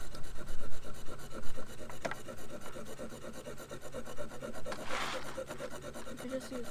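A knife blade scraping the coating off a scratch-off card in quick repeated strokes, a steady rasping.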